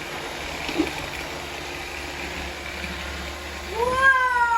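Robot vacuums running, a steady hum and whir. Near the end a long high call starts, rising briefly and then sliding slowly down in pitch.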